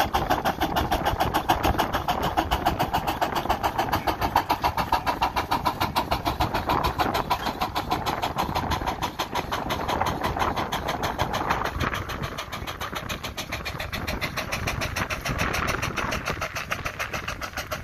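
Half-scale Case steam traction engine working under load pulling a plow, its exhaust chuffing in a quick, even beat. The chuffing grows fainter over the last few seconds.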